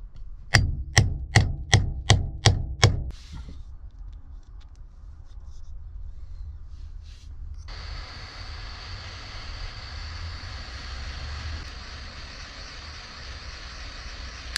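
A hammer striking a hammer-type lug crimper about seven times in quick succession, crimping a copper lug onto a battery cable. About eight seconds in, a heat gun starts blowing with a steady hiss as it shrinks tubing over the crimped lug.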